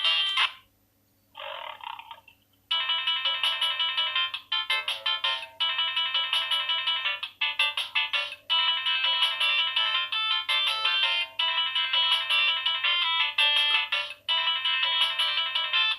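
Samsung SGH-X460 mobile phone playing its built-in ringtone melodies. One tune cuts off just after the start and a short snippet of another follows. After a brief silence a new electronic melody starts about three seconds in and plays on in repeating phrases.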